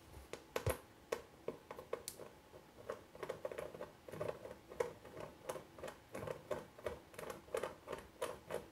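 Small T-handle being screwed by hand into a clear plastic door panel: a run of faint, irregular clicks and ticks, a few a second, from the threads and fingers on the plastic.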